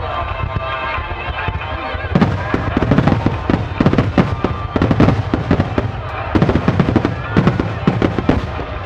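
A rapid barrage of fireworks shells bursting with crackling, starting about two seconds in and going on until near the end, over music playing throughout.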